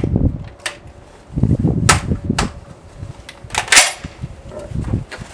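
A few sharp metallic clicks and clacks, the loudest about three and a half seconds in, over low rustling and bumping: an FN SCAR 17S rifle being handled between shots.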